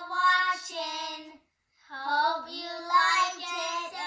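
A child singing a simple tune with held notes, in two phrases with a short break about one and a half seconds in.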